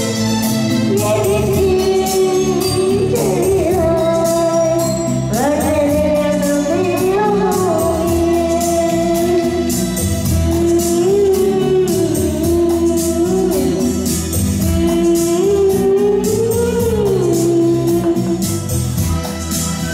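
A young boy singing a Malayalam song into a handheld microphone over a karaoke-style backing track with a steady beat, his melody gliding between long held notes.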